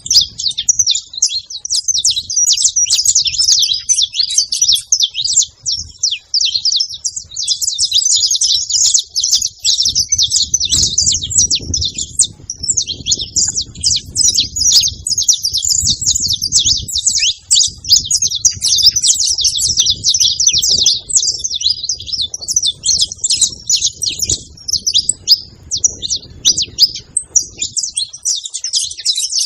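A flock of saffron finches chirping and trilling together, many overlapping calls in a dense, unbroken chorus.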